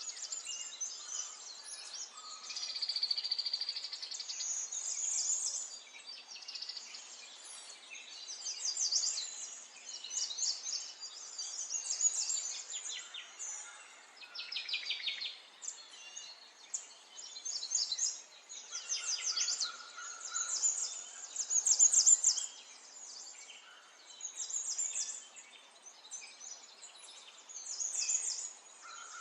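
Small songbirds chirping and twittering, with rapid high trills in repeated bouts of a second or two and several calls overlapping at times.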